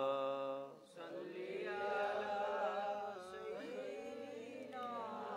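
Men chanting durood, the Islamic blessing on the Prophet Muhammad, in a drawn-out melodic chant. One voice holds a note through the first second and breaks off. Then a group chants more quietly with wavering pitch, as the assembly answering the leader.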